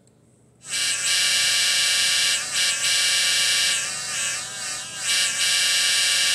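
Electronic diesel horn from an MRC Sound and Power 7000 model train sound unit, sounding through a small loudspeaker as its keys are pressed. It starts under a second in and holds as one steady many-toned blast, with brief dips and a wavering, softer stretch in the middle.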